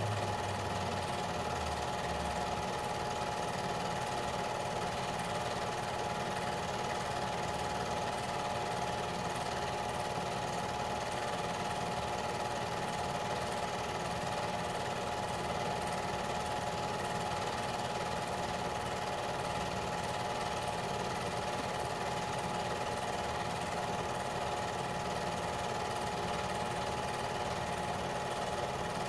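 Home-movie film projector running, its motor and film mechanism giving a steady mechanical whir with a constant hum.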